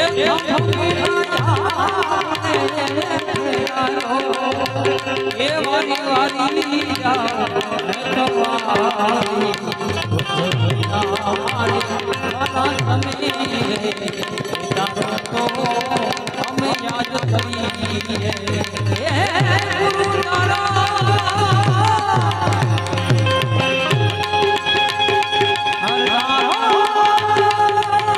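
Indian devotional folk music: tabla playing a steady rhythm under a melody with ornamented, wavering notes.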